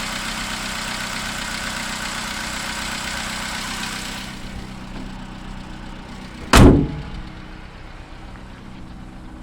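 Opel Corsa D 1.2 Z12XEP four-cylinder engine idling with a fast tapping/clicking that the owner suspects is noisy tappets, worse when cold. A few seconds in, the sound turns duller and muffled, and a single loud thump comes about two-thirds of the way through.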